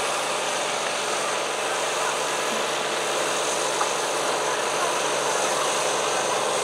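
Diesel garden tractor engine running steadily under load while pulling a weight sled.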